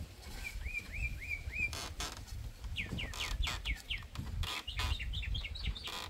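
A bird calling in three runs of quick, high chirps; the middle run is a series of notes that each sweep down in pitch. A few dull knocks fall between the runs.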